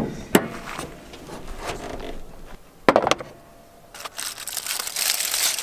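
Handling sounds at a car's engine bay as a pizza heated on the engine block is uncovered: a few sharp clicks and knocks, the loudest pair about three seconds in, then from about four seconds in steady crinkling of wrapping being handled.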